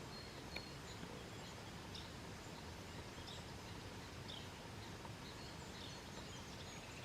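Quiet woodland ambience: a steady faint hiss with a few scattered, faint bird chirps and a small click about half a second in.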